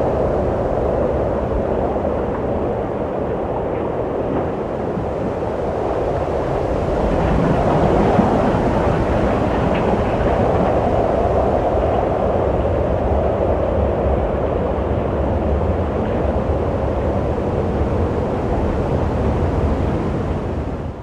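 Wind blowing steadily in a low, rushing rumble, swelling in a gust from about seven to ten seconds in.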